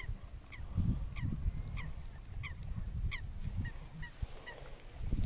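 Birds calling in a quick series of short, downward-slurred calls, about two or three a second, growing fainter near the end, over a low wind rumble.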